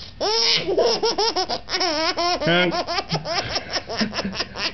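Baby laughing hard: a quick run of short laughs, many a second, swooping up and down in pitch.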